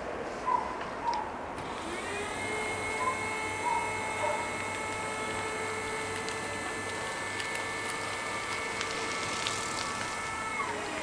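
Level-crossing barrier drive motors whining as the booms lift. The whine rises in pitch about two seconds in, holds steady, and drops away near the end as the barriers reach the upright. A few short chirps sound in the first five seconds.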